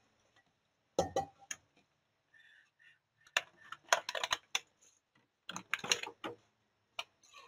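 Clear plastic packaging crackling and clicking as frozen half-shell scallops are handled in their plastic tray and wrap, in four short spells of crinkling with quiet gaps between.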